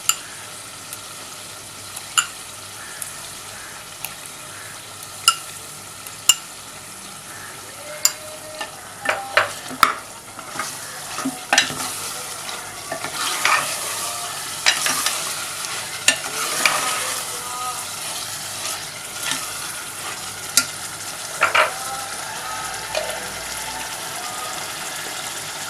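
Mutton, onion paste and ginger-garlic paste frying in oil and ghee in a pot, sizzling steadily while a spoon stirs and knocks against the pot now and then, most busily in the middle stretch.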